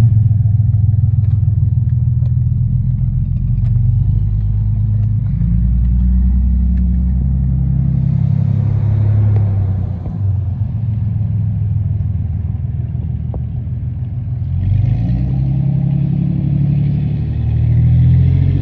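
A motor vehicle's engine running with a loud low rumble, its pitch rising and falling several times.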